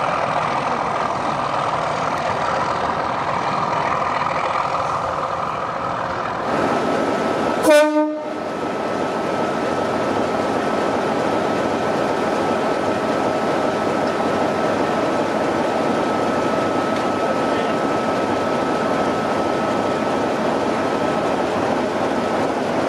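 Diesel locomotive engine running steadily, with one short horn toot about eight seconds in; a thin steady whine carries on through the engine noise after the toot.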